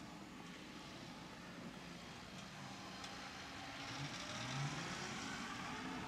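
Fendt 720 tractor's six-cylinder diesel engine running and getting louder as it draws closer, with the engine note rising briefly about four seconds in as the reversible plough is raised and turned over at the headland.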